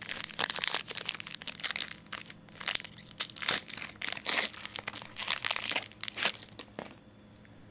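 Trading card pack wrapper and cards being handled: irregular, rapid crinkling and rustling that stops about seven seconds in.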